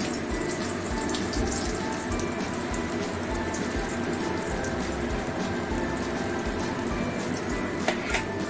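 Whole boiled potatoes deep-frying in plenty of hot oil in an aluminium kadai: a steady sizzle full of fine crackles, with a couple of sharp clicks near the end.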